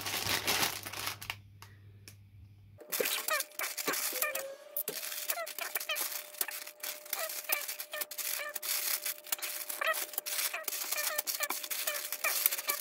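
Sealed plastic bags of LEGO pieces crinkling and rustling as they are handled and lifted out of the box, with many sharp clicks from the bags and loose bricks rattling. A faint steady hum runs underneath from about three seconds in.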